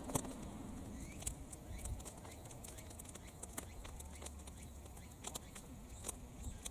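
Bonfire of sun-dried weeds burning, with irregular sharp crackles and pops, one louder snap right at the start, over a low wind rumble.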